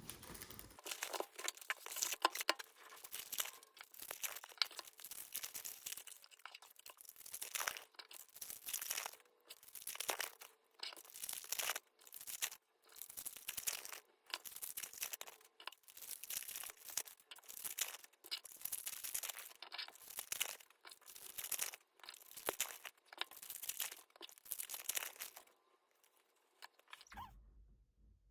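Trading-card pack wrappers being torn open and crinkled, one rip after another in quick succession, stopping shortly before the end.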